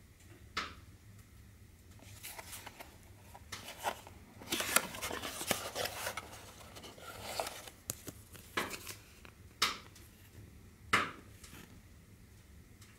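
A small cardboard box being handled and opened by hand: scattered taps and scuffs on the cardboard, a denser stretch of rustling of paper and plastic packing in the middle, and a few sharp clicks later on.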